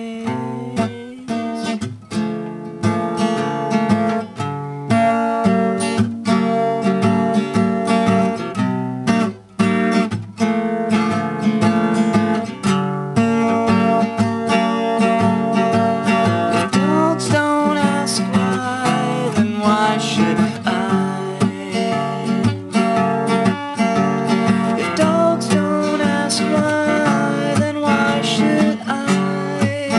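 Acoustic guitar being strummed and picked in a steady rhythm, with chords changing every second or so.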